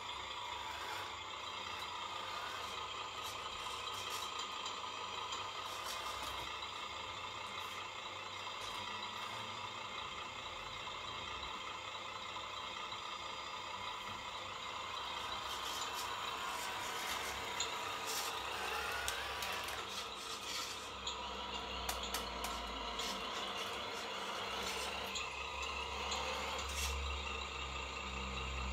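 Scale RC truck's onboard sound module playing a diesel truck engine idling after start-up, with a rise in revs a little past halfway and a few short hisses.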